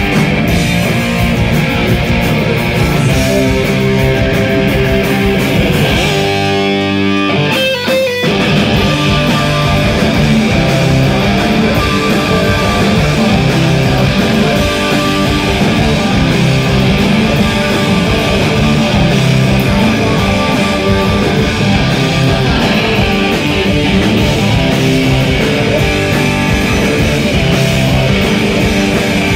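Live rock band playing loud, distorted electric guitar over bass and drums. The lowest notes drop out for about two seconds some six seconds in, then the full band comes back in.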